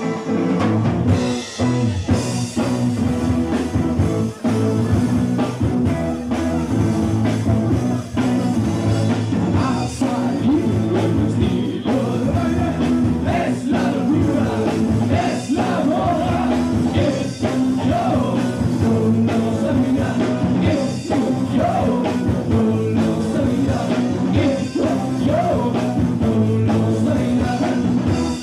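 Live rock band playing a song with lead vocals, electric guitar and bass, loud and continuous throughout.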